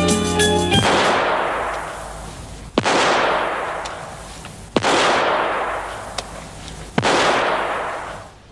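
Four gunshots about two seconds apart on an indoor shooting range, each trailing off in a long echo. The tail of the theme music is heard in the first second.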